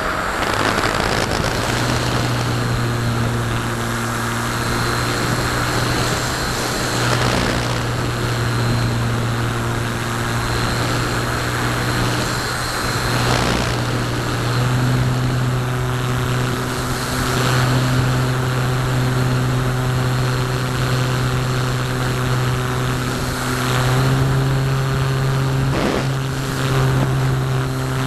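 A Parkzone Radian's Firepower 10 electric motor drives its propeller under power: a steady drone that steps up slightly in pitch a few times. Wind rushes over the onboard camera, with occasional gusts.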